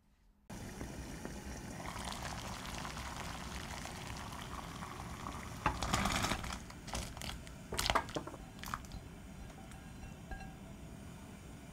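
Water boiling steadily in a small saucepan. About six seconds in, diced raw potatoes are tipped in from a glass bowl with a burst of splashing and knocking, and a few more splashes follow over the next couple of seconds.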